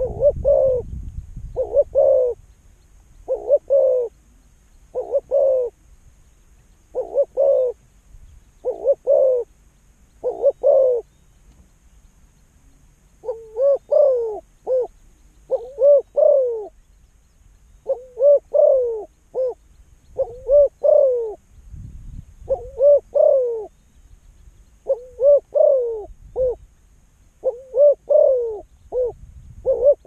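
Spotted dove cooing: a run of single low coos about one a second, then from about thirteen seconds in quicker phrases of two or three coos, each note dropping in pitch at its end.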